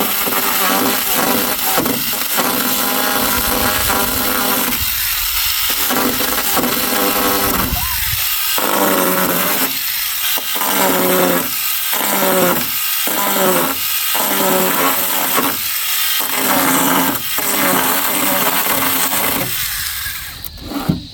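Power saw cutting wood, running in a series of cuts with short breaks between them.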